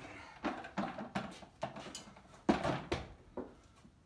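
Farrier work on a horse's hoof at a metal hoof stand: a series of irregular knocks and clanks, the loudest about two and a half seconds in.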